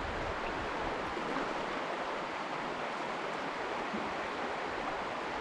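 Steady rush of flowing river water, an even hiss that holds level throughout.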